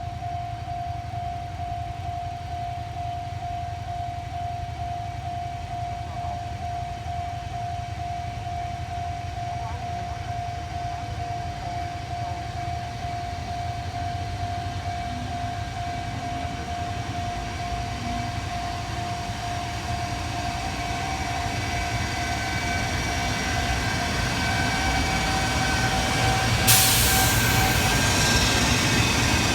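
A train drawing near, its low rumble growing steadily louder over the last ten seconds. A steady high tone runs under it and stops shortly before the end, and a sudden loud hiss breaks in near the end.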